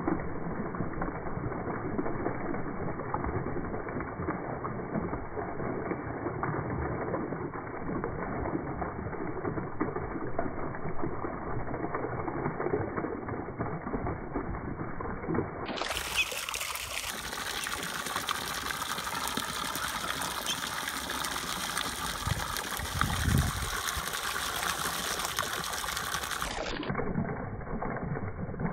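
A hose's stream of water splashing into a plastic tub of water while muscovy ducks bathe and splash in it.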